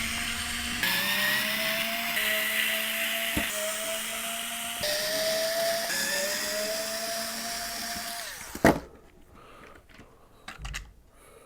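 Electric screwdriver backing the housing screws out of a DeWalt drill in several short runs, its motor whine rising in pitch through each run. The whine stops about eight seconds in, followed by one sharp clack and a few light knocks.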